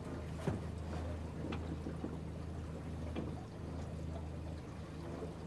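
Boat motor running steadily at a low hum, with water lapping and trickling close by.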